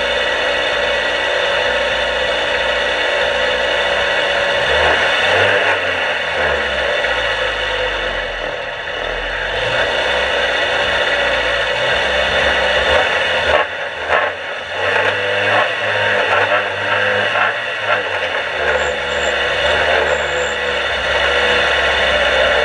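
Dirt-track race car's engine idling, heard from inside the cabin, its pitch rising and falling a few times as the throttle is blipped. A cluster of short knocks comes a little past the middle.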